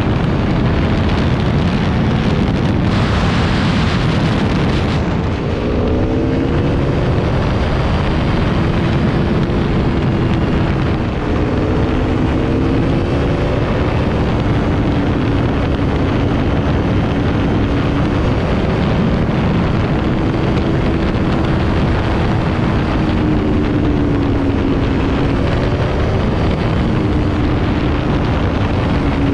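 Aprilia motorcycle engine running at road speed under loud wind rush on the microphone, its note climbing a couple of times in the first half and then holding steady.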